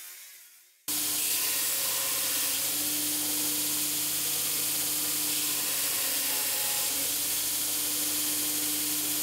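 Welding arc on steel, a steady hiss with a faint hum beneath, starting abruptly about a second in after a machine sound dies away.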